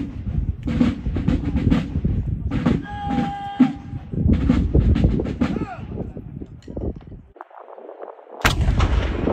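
Quick drum beats, about three to four a second, over a steady low rumble, then a single loud sharp bang near the end that cuts off abruptly.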